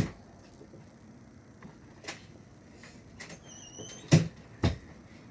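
Scattered knocks and thumps, with a brief high squeak just before two heavy thumps near the end.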